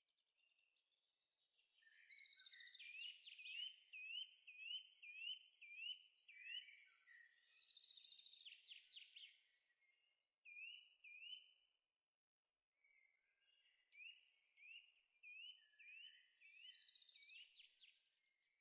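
Faint birdsong: a bird repeats a short rising note about twice a second, mixed with quick downward-sliding notes, in two phrases with a brief pause in between.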